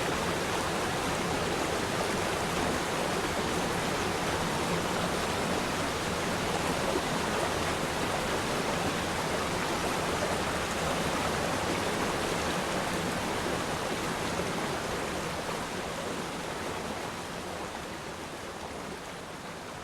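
Waterfall: a steady rush of falling water with no breaks, fading out gradually over the last few seconds.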